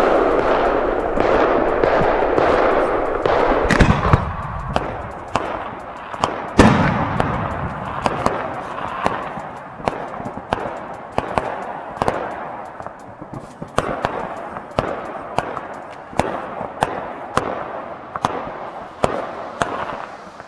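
Fireworks: a loud rush of noise dies away over the first few seconds as a 4-inch aerial shell's burst fades. A sharp bang comes near four seconds and the loudest bang about six and a half seconds in. After that come scattered sharp bangs of fireworks and firecrackers, roughly one or two a second.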